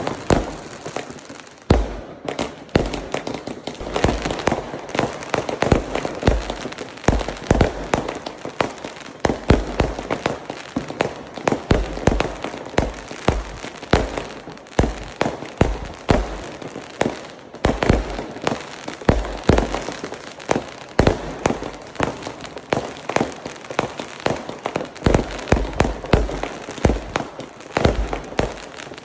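Fireworks display: a continuous barrage of bangs and crackling, with several deep booms every second throughout.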